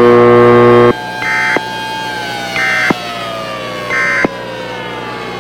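Emergency Alert System end-of-message signal: three short warbling data bursts about a second and a half apart, preceded by a loud buzz lasting about a second. Underneath, a siren wails steadily, slowly rising and then falling in pitch.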